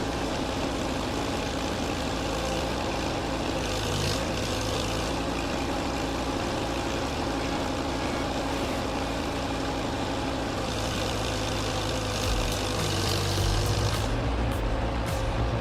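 Heavy machinery engine running steadily under load, a continuous low rumble with a brief rise in hiss now and then.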